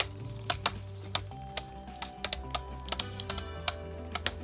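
Spinning Beyblade tops, the custom 3D-printed Necromancer Ares and Dread Bahamut, clashing in a stadium: a run of irregular sharp plastic clacks as they collide and spin-steal. Background music plays underneath.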